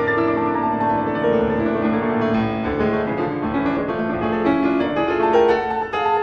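Background piano music: a steady stream of notes, several to the second.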